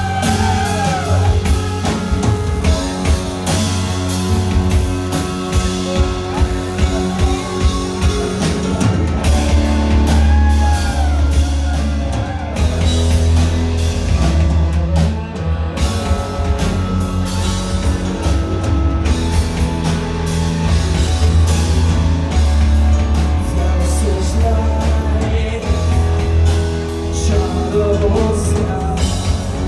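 Live rock band playing a song, with drum kit and guitar.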